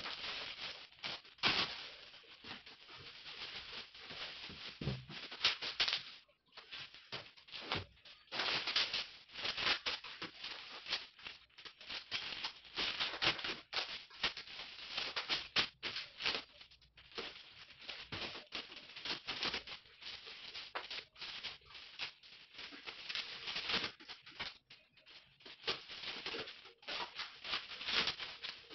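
Clear plastic wrap crinkling and rustling as it is pulled and pressed around a large framed painting, in irregular crackly clusters with brief pauses.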